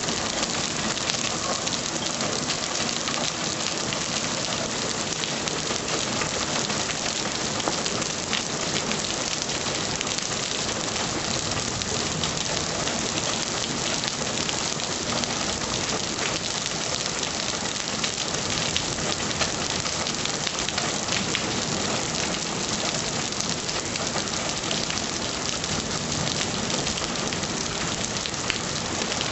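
Heavy rain falling steadily, a dense, even hiss of drops hitting surfaces, with no lulls.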